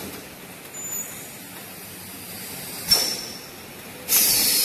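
Thermoforming vacuum packaging machine running, with a sharp pneumatic click about three seconds in and then a short, loud burst of hissing air near the end, as on a pneumatic valve venting.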